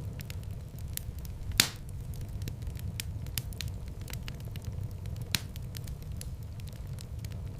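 Wood fire in a fireplace crackling over a steady low rumble, with many small crackles and two louder pops, about a second and a half in and again about four seconds later.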